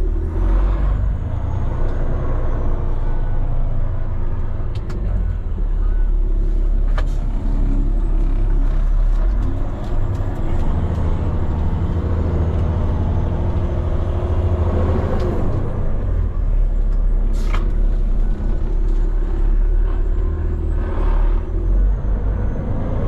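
Diesel engine of a Peterbilt 389X heavy rotator tow truck running at low speed, heard from inside the cab as the truck is steered slowly through the lot. A short, sharp burst of air sounds about two-thirds of the way through.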